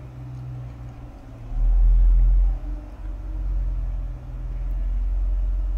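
Deep, uneven rumble of handling noise on a phone microphone as the phone is moved around the open driver's door, swelling loudest about a second and a half in and again in the second half, over a steady low hum.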